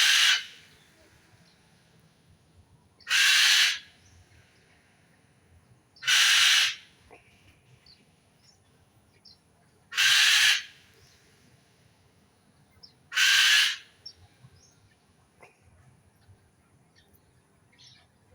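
A bird's harsh, noisy call, given five times about three to four seconds apart, each lasting about half a second. Faint short chirps of small birds come between the calls.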